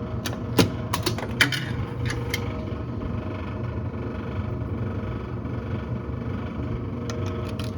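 Metal clicks and clinks of a quarter going into a vending machine's coin slot and dropping back through the coin-reject mechanism, several in the first two seconds and again near the end, over a steady low machine hum.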